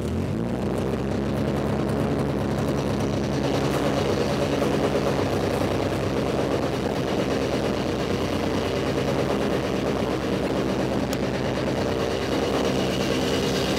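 Freshly built turbocharged four-cylinder engine of a Mitsubishi Lancer Evolution VIII catching right at the start and then running at a steady high idle. It is revving way too high: its ECU map still needs adjusting after the first start.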